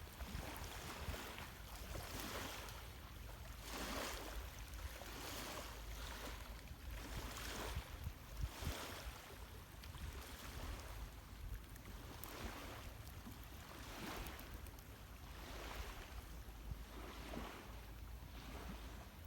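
Small lake waves lapping at the shore in soft, regular swells about every second, over a steady low wind rumble on the microphone. A few sharp pops come about eight seconds in.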